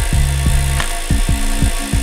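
Background electronic music with a kick-drum beat over a low bass line that steps between notes.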